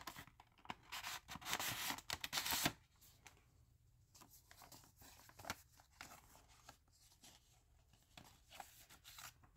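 Paper packaging tearing and rustling for the first few seconds as a 7-inch record in a white paper sleeve is pulled free from a comic book, then softer rustles and light taps as the sleeve is handled.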